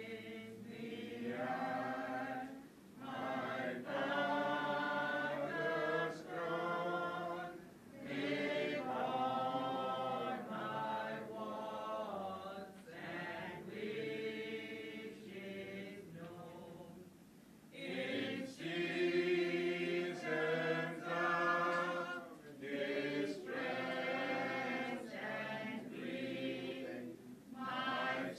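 Singing voices carrying a song in long phrases, with short pauses between them, the longest about two-thirds of the way through.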